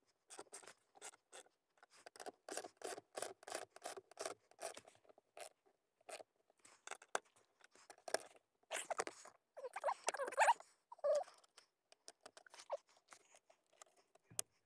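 Hand-tool work on a metal mounting plate: quick runs of clicks and scrapes from a wrench on a bolt and the steel plate shifting against the floor mat, with a longer scraping rattle about ten seconds in.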